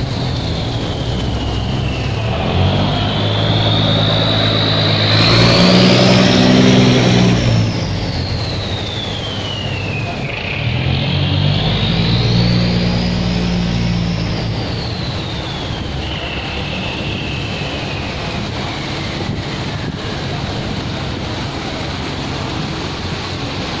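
Engines of cargo barges running as the boats pass close by, the engine note swelling twice, with water rushing in their wake. A high whine slowly rises and falls in pitch over the engine sound.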